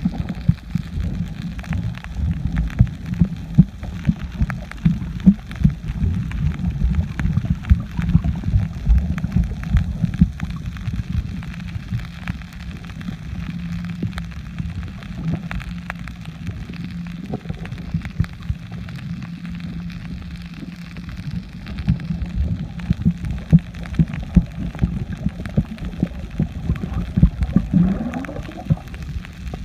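Underwater sound heard through a camera held below the surface: a low, muffled rumble of moving water with a constant run of pops and crackles.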